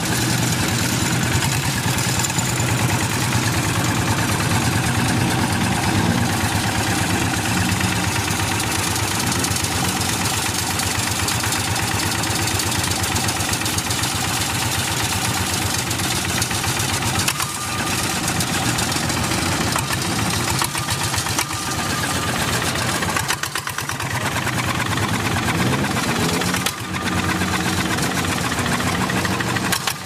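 Single-cylinder diesel engine of a race-modified walking tractor running loud through its open flared exhaust, mostly steady, with a few brief drops in the second half, each followed by the revs climbing again.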